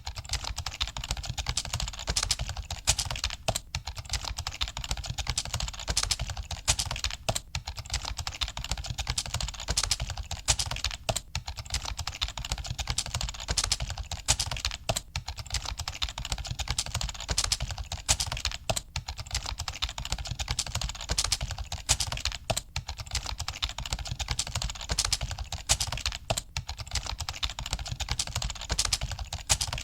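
Rapid, continuous typing on a computer keyboard, a dense run of key clicks with a brief break about every four seconds.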